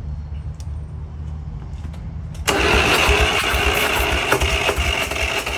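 Diesel engine running with a low, steady rumble, then about halfway through it turns suddenly much louder and harsher, with a high whine over the clatter.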